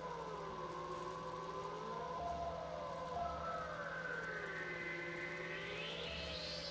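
High-voltage plasma discharge streaming off a spinning wire, giving a steady low hum with several whining tones that waver slowly up and down in pitch. One tone climbs much higher near the end.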